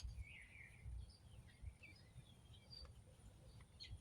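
Near silence, with faint bird chirps in the background and one sharp click right at the start.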